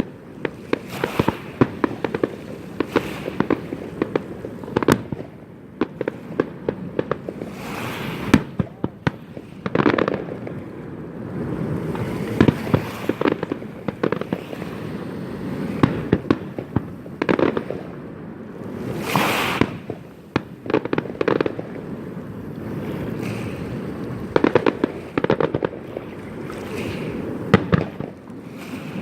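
Fireworks display going off: a continuous run of sharp bangs, several a second, over steady crackling, with louder bursts throughout.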